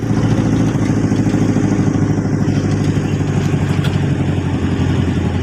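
A van's engine running steadily, heard from inside the cabin.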